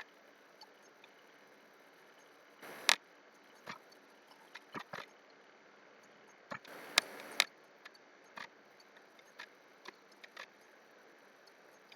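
Irregular clicks and taps from a computer mouse and keyboard in use, a dozen or so single clicks over a quiet background, loudest about three and seven seconds in.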